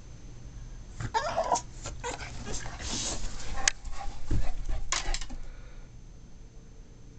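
Shar Pei dog whining and whimpering in a string of high yelps, excited at the sight of a squirrel. The noises come thick from about a second in and die away after about five seconds.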